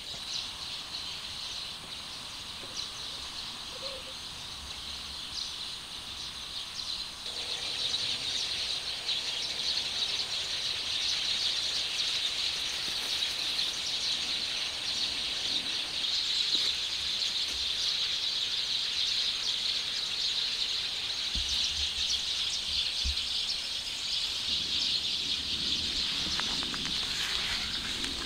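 Outdoor wildlife ambience: a steady, high-pitched chorus of insects and birds, which gets louder about seven seconds in.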